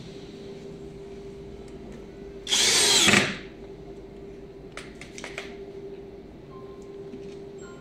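Power drill driving a screw to fix a metal drawer slide, one burst of a little under a second about two and a half seconds in, over a steady hum, with a few light clicks a couple of seconds later.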